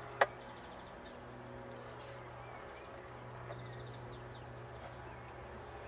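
Small birds chirping and trilling in the background over a steady low hum, with a single sharp click about a quarter second in.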